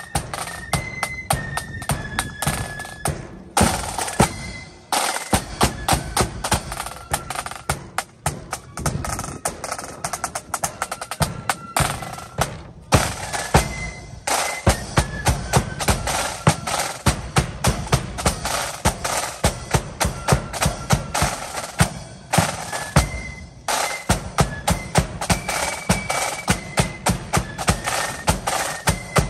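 Marching flute band playing a melody over rapid snare drum rolls and a bass drum beat, with a few brief pauses in the playing.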